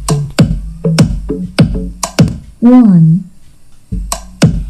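Electronic music with a drum-machine beat played loudly through a Kensonic trolley speaker: a steady run of sharp hits with deep bass tones, and one wavering, sliding sound a little before the middle.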